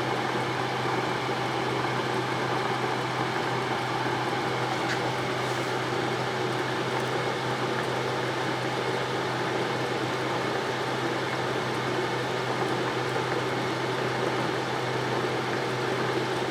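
Cylindrical grinder's workhead motor running steadily with a constant low hum, spinning an ER32 collet chuck.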